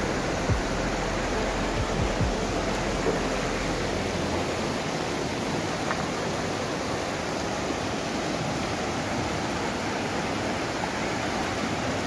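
Mountain stream rushing over boulders in shallow rapids: a steady rush of water, with a few soft thumps in the first three seconds.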